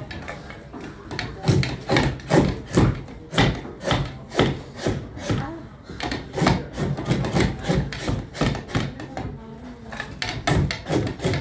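Clogmaker's large hinged bench knife shaving the outside of a wooden clog blank: repeated cutting strokes through the wood, about two a second, with a couple of short pauses.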